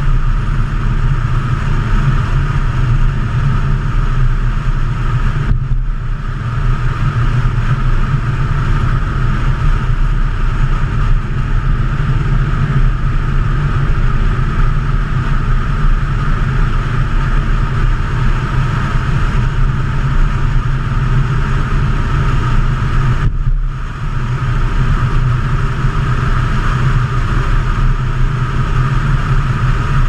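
Mercedes 300D diesel car driving at a steady cruise, its engine rumble mixed with road and wind noise. The sound dips briefly twice, about six seconds in and again near twenty-four seconds.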